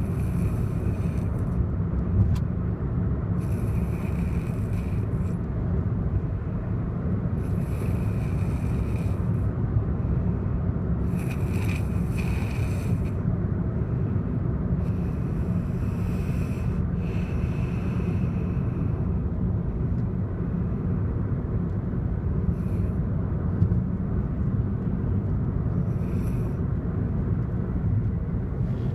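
A person snoring in slow breaths, one about every four seconds, over a steady low rumble. The breaths grow fainter and sparser in the second half.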